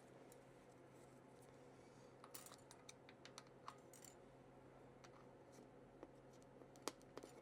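Near silence with a steady low hum. Faint scattered clicks and light taps, as of small things being handled, with two sharper clicks near the end.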